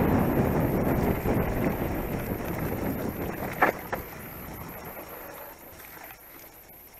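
Wind buffeting the helmet-camera microphone and mountain-bike tyres rolling over a dirt trail, fading steadily as the bike slows, with one brief sharp sound about three and a half seconds in.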